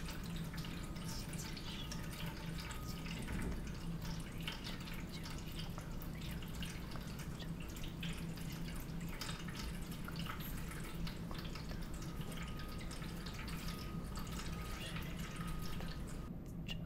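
Water dripping and splashing in an irregular patter over a steady low hum. The splashing cuts off shortly before the end.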